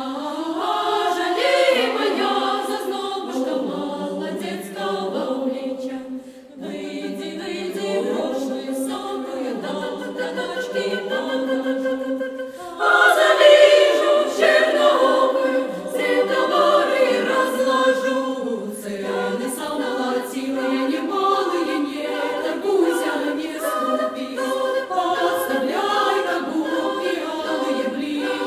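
Women's choir singing a cappella, several voices in harmony. The singing dips briefly about six seconds in and comes back louder about halfway through.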